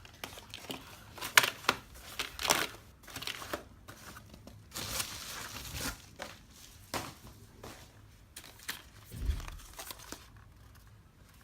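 Packaging being handled and opened: irregular crinkling and rustling with sharp clicks, loudest in the first few seconds, and a dull thump about nine seconds in.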